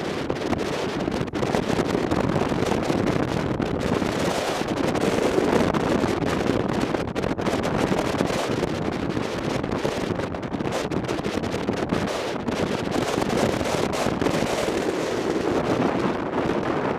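Wind rushing and buffeting over the microphone of a camera riding on a moving motorcycle: a steady, rough noise that covers any engine sound.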